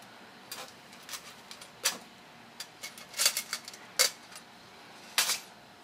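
Small tools and carburetor parts clicking and tapping on a workbench while screws are fitted to a motorcycle-ATV carburetor: irregular sharp clicks, a quick cluster of them about three seconds in and a louder one near the end.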